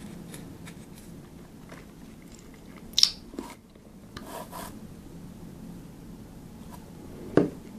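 Small handling noises at a workbench: light ticks, taps and rustles of small parts and tools being handled, with a sharp click about three seconds in, a short scratchy rustle just after, and a louder knock near the end.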